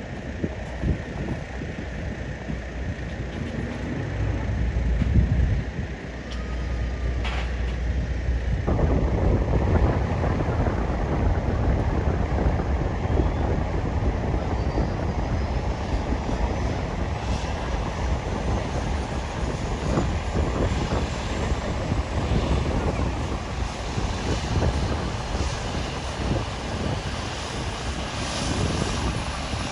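Rescue helicopter running on the ground, its turbine engines and rotor making a steady, rapidly pulsing noise. The sound turns suddenly fuller and louder about nine seconds in. A faint high whine climbs slowly in pitch through the second half.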